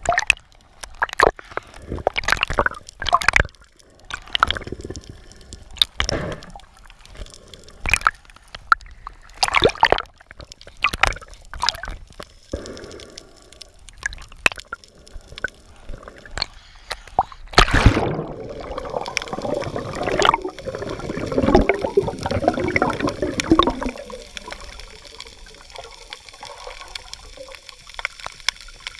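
Water sloshing and gurgling against a camera held underwater, with irregular sharp knocks and clicks. About two-thirds through it turns into a denser churning stretch for several seconds, then settles to a quieter hiss.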